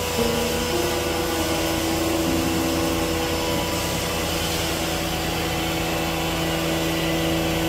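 Manual band-saw cutting machine for folded hand-towel logs running with a steady whirring hiss. A few steady tones shift in pitch now and then over the noise.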